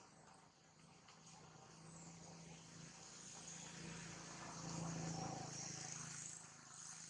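A distant motor vehicle's engine hum, growing louder to a peak about five seconds in and then fading as it passes, with a faint high buzz throughout.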